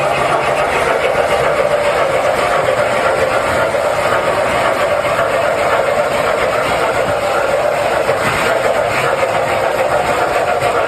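Model train running steadily along its track: a continuous, even running sound of motor and wheels on rail.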